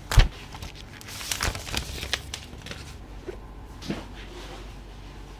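A sharp knock just after the start, then plastic shrink-wrap on a phone box crinkling and tearing as it is pulled off in a run of crackles. Near four seconds in comes a soft scrape as the box lid is lifted.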